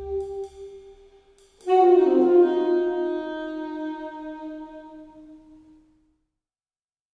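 Instrumental jazz-style score for horns: a held saxophone-like note fades with a few light ticks, then a loud brass chord enters about two seconds in, slides slightly down and dies away, ending in silence about six seconds in.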